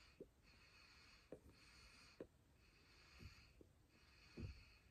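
Faint puffing on a tobacco pipe being lit with a match: short soft lip pops about once a second between quiet draws, the strongest near the end.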